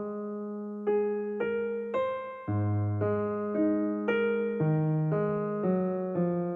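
Background music: a slow, gentle piano melody, single notes struck one after another and left to ring out.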